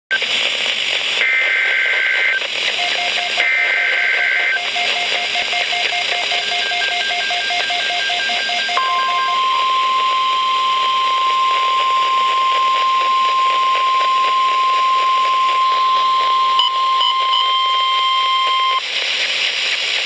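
NOAA Weather Radio receiver sounding an Emergency Alert System alert over steady static hiss. It opens with two screechy bursts of the SAME digital header, each about a second long, and then rapid beeping. About nine seconds in, the 1050 Hz warning alarm tone begins, holds steady for about ten seconds and cuts off suddenly.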